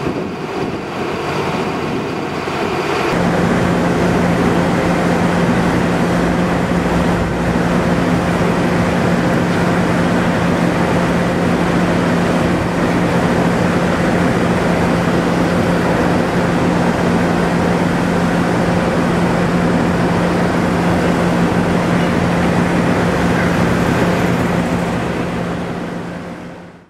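Diesel locomotive engine running steadily: a constant low hum under a loud rush of noise. The sound steps up about three seconds in and fades out at the very end.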